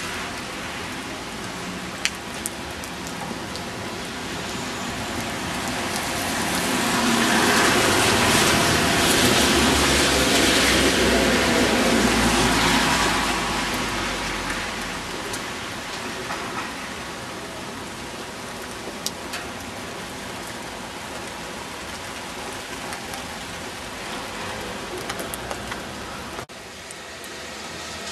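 Steady rain falling, an even hiss. For several seconds in the middle a louder whooshing swell with a low rumble underneath rises and fades. A few small clicks are heard.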